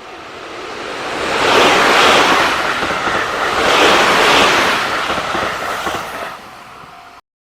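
A freight train passing a level crossing: a loud rushing roar swells from about a second in, peaks twice and fades, then cuts off abruptly near the end. The crossing's warning bell rings steadily underneath.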